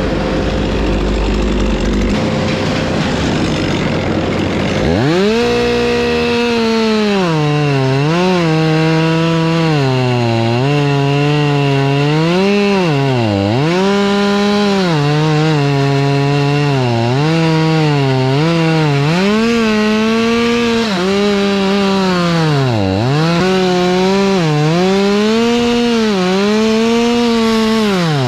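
Gas chainsaw running at full throttle while cutting through a tree trunk, its pitch dropping again and again as the chain bogs down in the wood and rising as it frees up. Before the saw comes in, about five seconds in, there is a steady low engine rumble.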